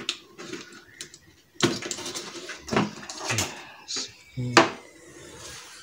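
Irregular clicks, knocks and light clatter of parts being handled at a car's open boot-lid switch recess, several separate knocks about a second apart.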